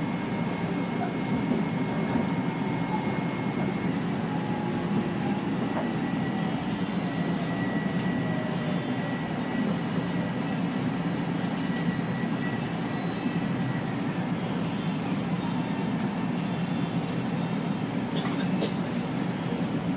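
Steady low rumble inside a commuter train car, with faint steady whines and a few clicks near the end.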